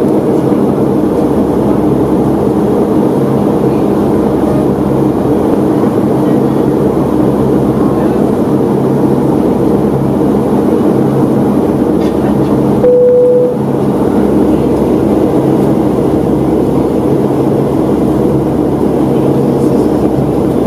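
Steady in-flight cabin noise of a Boeing 757-200 with Rolls-Royce RB211 engines: a loud airflow rush over a steady hum of several low tones. About two-thirds through, a brief single tone sounds, and the noise dips for a moment.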